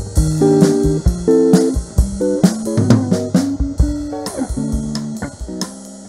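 Background music led by guitar and bass guitar over a steady drum beat.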